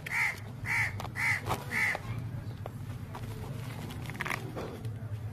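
A crow cawing four times in a quick, even series about half a second apart, then once more a little after four seconds in, over a steady low hum.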